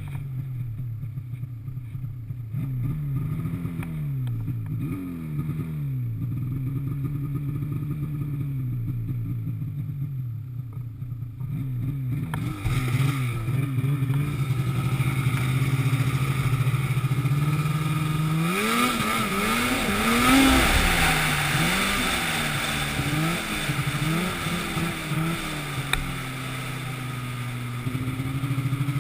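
An engine running, its pitch rising and falling again and again as the throttle is worked. About twelve seconds in a rushing noise joins it and grows, loudest a little past the middle, while the engine is revved hardest.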